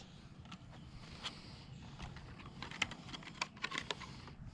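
Faint, irregular light clicks and taps of small plastic RC crawlers being handled and set on a weighing scale, coming thickest about two-thirds of the way through.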